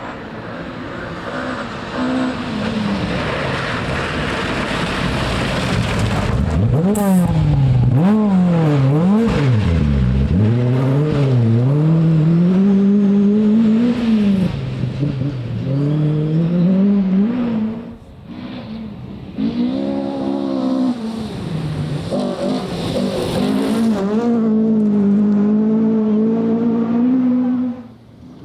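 Rally car engine at competition speed, its revs rising and falling again and again through gear changes and lifts, then holding high near the end before cutting off suddenly.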